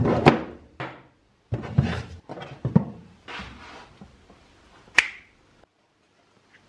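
Hand tools (pliers and wire strippers) clacking and knocking as they are hung on a steel-rod tool rack: several clusters of knocks over the first four seconds, then one sharp click about five seconds in.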